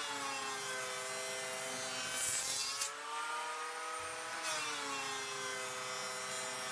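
Electric hand planer running along the corners of a mahogany blank, knocking them off. The motor whines steadily, with a louder hiss of cutting about two seconds in and again past four seconds.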